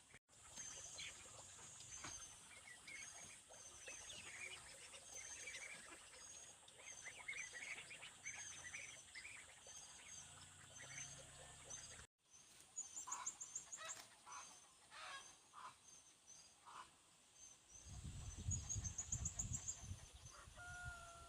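Faint outdoor ambience with birds calling, including a high chirp repeated about twice a second. A low rumble comes in near the end.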